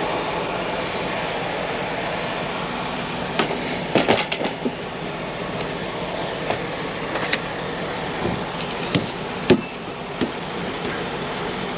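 Steady rumbling machinery noise with sharp metallic clicks and knocks of hand work fastening an electrical box: a quick run of them about four seconds in, then single knocks every second or so.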